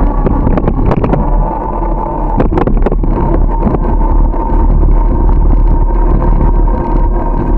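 Wind and road noise on the microphone of a camera riding on a moving bicycle: a loud, steady rumble with a faint steady hum over it. A few sharp knocks come between two and three seconds in.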